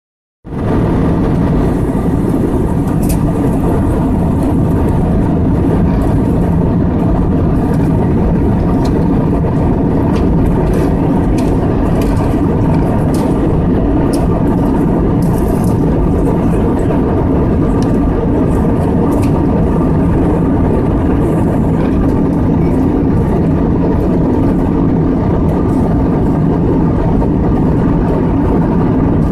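Steady cabin noise of an Airbus A320 in cruise, heard from a window seat: the drone of the jet engines and the rush of air along the fuselage, with a few faint steady hums mixed in.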